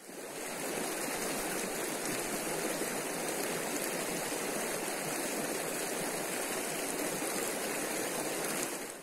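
Mountain river rushing steadily over rocks in a gorge, an even, unbroken roar of water.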